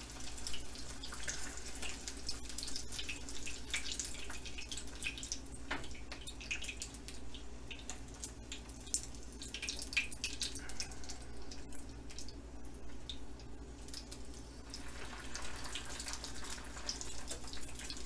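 Egg rolls shallow-frying in hot oil in a frying pan: a steady sizzle full of irregular crackling pops.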